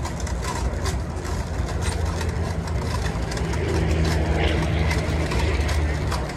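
Large gantry-type 3D concrete construction printer running: a steady, low engine-like mechanical hum that grows somewhat louder midway.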